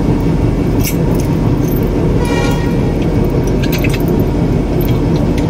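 Small steel chain of a locomotive centre buffer coupler's lock pin clinking as it is handled, in scattered sharp jangles, over a loud steady low rumble.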